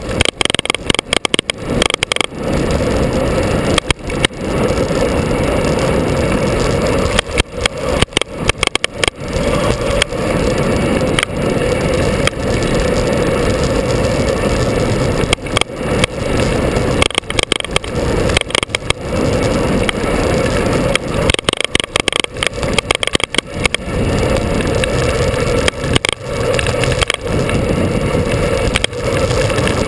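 Steady running noise of a vehicle on the move, engine and wind, picked up by an onboard camera, with many brief sharp dips and dropouts in the sound.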